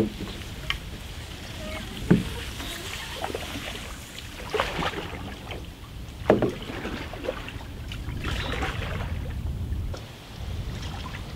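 Canoes being pushed off a muddy, reedy bank with paddles: splashes and sharp knocks every couple of seconds as the paddles dig into the water and mud and strike the hulls.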